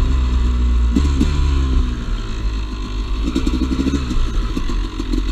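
Two-stroke dirt bike engine running and revving as the bike is ridden, its pitch changing several times. It runs cleanly, having just cleared out.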